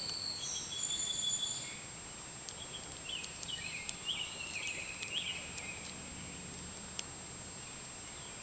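Faint scattered clicks of a hook pick lifting the pin tumblers of an old Federal 100G pin-tumbler padlock under top-of-keyway tension, the pins being set one by one. Short high chirping calls sound in the background, mostly in the first couple of seconds and again in the middle, over a steady high tone.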